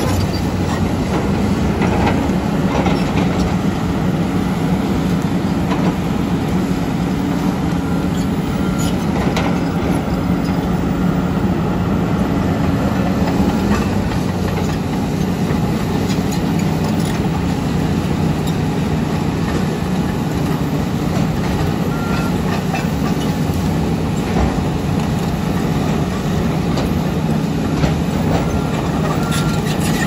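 Heavy diesel engine drone of a Komatsu D85EX crawler dozer pushing earth, with the clank and rattle of its steel tracks, blended with the engine of an excavator close by. A few short high beeps sound now and then, most of them near the end.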